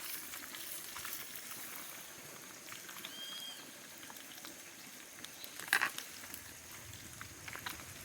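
Fish frying in hot oil over a wood fire: a steady high sizzle with scattered crackles and one sharper pop about three-quarters of the way through.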